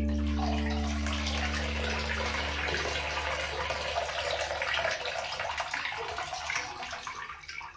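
Water streaming and dripping off the plastic hull of a Henglong 3810 RC tugboat as it is lifted out of bathtub water, splashing back into the tub. A guitar music track fades out under it in the first few seconds.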